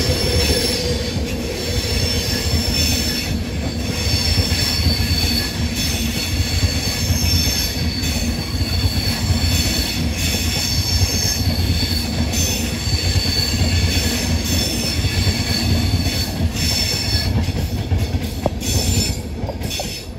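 Mark 4 passenger coaches of an InterCity 225 train rolling past, their steel wheels rumbling on the rails with a steady high-pitched wheel squeal over the top.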